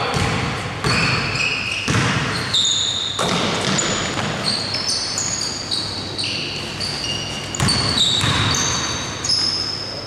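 Basketball game sounds in a large gym: sneakers squeaking in short, high-pitched chirps on the court floor, many times over, with the ball bouncing and thudding.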